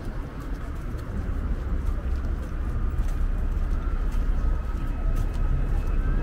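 Outdoor ambience heard while walking: a steady low rumble, with faint clicks of footsteps and a faint thin high tone.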